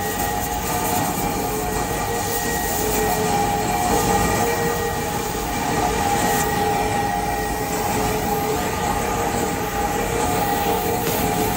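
Oxy-fuel cutting torch burning steadily as it cuts through a steel truck leaf spring: a continuous hiss with a steady tone running through it.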